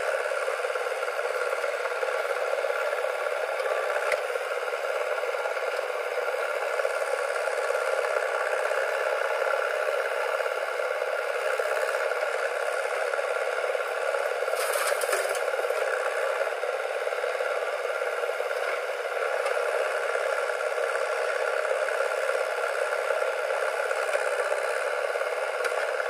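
JCB 3DX backhoe loader's diesel engine running steadily under load as the backhoe digs and swings, with a brief clatter about fifteen seconds in as a bucket of soil drops into the tractor trolley.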